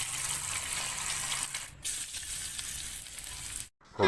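Food sizzling as it fries in a pan, a steady hiss broken briefly about two seconds in.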